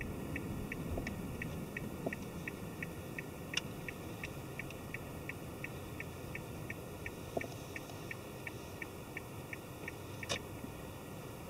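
Car turn-signal indicator ticking evenly, about three ticks a second, with a low rumble under it and a couple of louder clicks; the ticking stops near the end.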